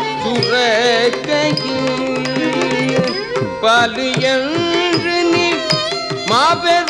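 Carnatic music in raga Kambhoji, misra chapu tala: a male voice singing with sliding, ornamented notes over frequent mridangam strokes.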